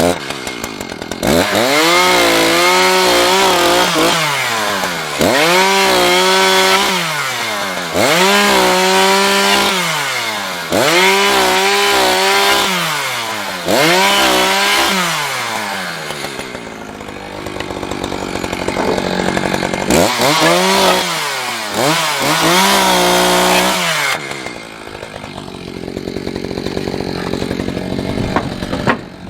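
Chainsaw cutting sawmill slab scraps into firewood lengths: the engine revs up for a short cut and drops back about seven times in a row, then runs at idle near the end.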